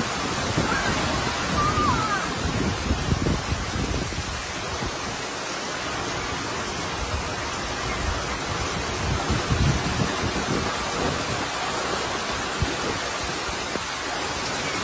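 Heavy rain pouring steadily, with gusts of wind buffeting the microphone.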